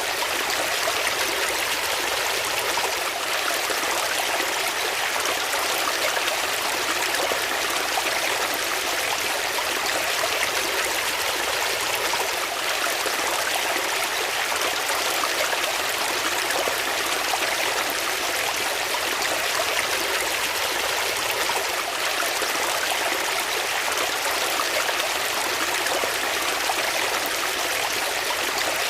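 Water flowing steadily in a stream, a constant even splashing rush with no breaks.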